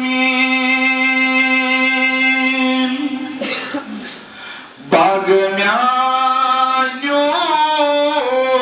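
A solo male voice singing a naat, an Islamic devotional poem: one long held note for about three seconds, a brief breathy pause, then ornamented phrases that glide up and down in pitch.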